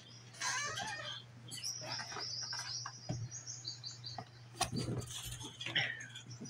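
A bird chirping in quick runs of short, high notes, over a steady low hum, with a few soft knocks and scuffles around the middle.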